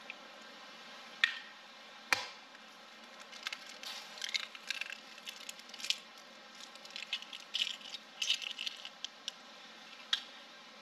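Eggs cracked against the edge of a bowl and separated, yolk from white: two sharp cracks, then a run of light clicks and wet taps of shell, with one more crack near the end.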